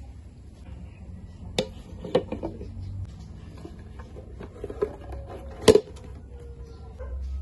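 Metal tube pan and wooden serving board knocking together as the pan of leche flan is turned over onto the board: a few sharp clunks, the loudest near the end, after which the metal pan rings briefly.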